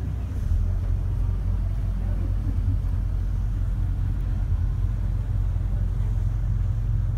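Passenger ferry underway, its engines giving a steady low rumble.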